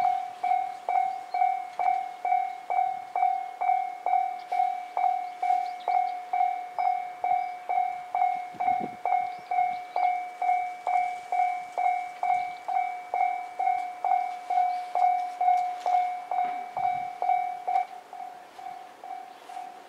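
Japanese railway level-crossing electronic warning bell ringing, a pitched ding repeated about twice a second. About 18 seconds in the louder bell stops and a fainter one keeps ringing at the same pace.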